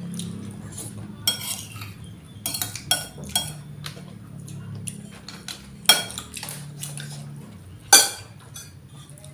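Spoons and forks clinking and scraping against plates and soup bowls during a meal, in scattered sharp clinks, the loudest about six and eight seconds in. A low steady hum runs underneath.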